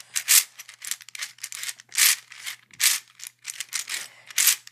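Layers of a 3D-printed, hand-sanded PLA 3x3x5 puzzle cube turned quickly by hand: a rapid run of plastic clicks and clacks, several a second, with a few sharper clacks among them.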